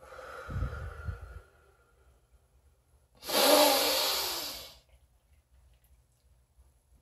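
A man breathing deeply as a breathing exercise: a softer breath in the first second and a half, then about three seconds in a loud rush of breath out that fades away over a second and a half.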